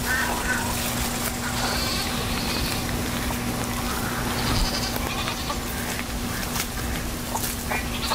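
Goats bleating over a steady low hum.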